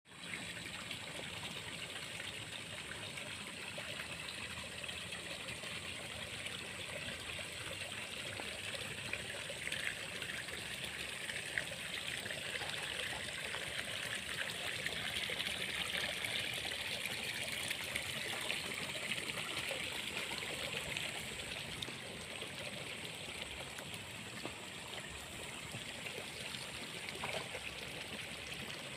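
Water trickling and running through the channels of flooded rice paddies after rain, a steady rush that grows a little louder midway.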